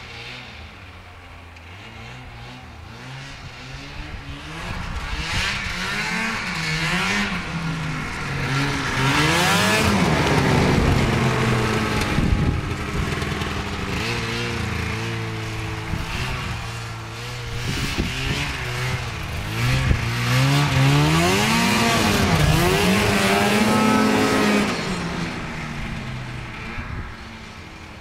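1992 Ski-Doo Mach 1 snowmobile's two-stroke 521 engine revving up and down as it rides by, passing close twice, then fading.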